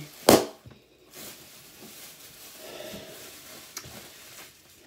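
A single short, sharp burst of noise a moment in, then faint rustling.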